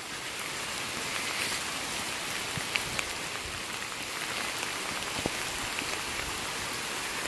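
Rain falling hard, a steady even hiss, with a few sharp ticks of single drops landing close by.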